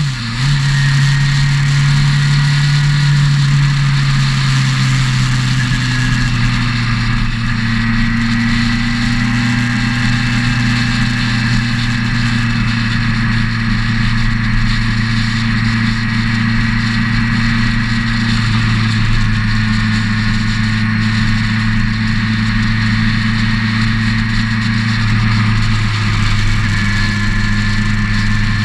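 Motorcycle engine running at a steady cruise, heard from on board the moving bike, with constant wind and road rush. The throttle eases off for a moment just after the start, then the engine note holds steady, settling a little lower over the next few seconds.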